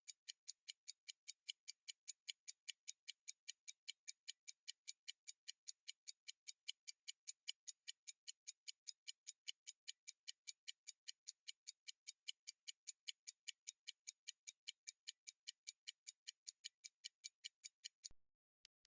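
Rockford Grade 67 pocket watch movement ticking: a quick, even run of light, high ticks. The ticking breaks off suddenly about a second before the end, and a few fainter ticks follow.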